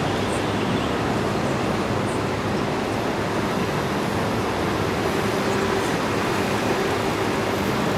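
Steady city traffic noise from cars and buses running, a continuous rumble with a faint steady hum that swells slightly about five seconds in.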